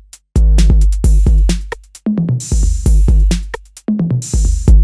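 Electronic outro music: a drum-machine beat of sharp clicks over heavy deep bass notes, with short breaks in the rhythm.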